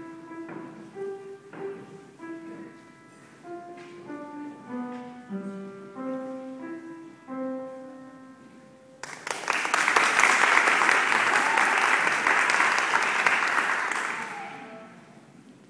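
Upright piano playing a slow piece of single notes and chords, which ends about nine seconds in. Applause follows for about five seconds and then fades out.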